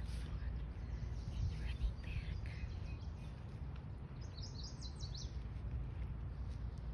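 Outdoor ambience of a steady low rumble with small birds chirping, including a quick run of high chirps about four to five seconds in.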